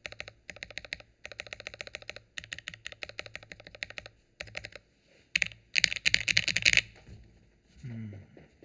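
Typing on a KBDfans Phase One 65 mechanical keyboard with Gateron Oil King linear switches and GMK keycaps, run without its case foam: quick runs of keystroke clicks with short pauses. A louder, denser flurry of keystrokes comes about six seconds in.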